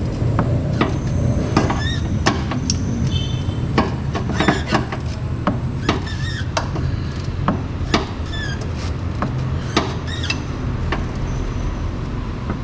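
Car-servicing clatter: scattered metal clinks and knocks from tools and parts, with a few short squeaks, over a steady low hum.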